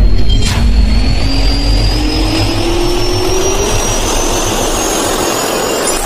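Jet-turbine spool-up sound effect for a logo intro: a steady rush of air under a slowly rising whine, with a click about half a second in, breaking off suddenly near the end.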